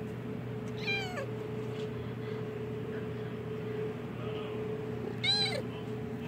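Two short, high-pitched cries from a newborn kitten, one about a second in and one near the end, each falling in pitch, over a steady low hum.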